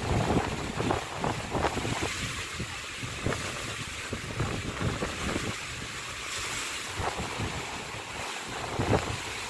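Rough sea surf washing in strong wind, with gusts buffeting the microphone in repeated thumps.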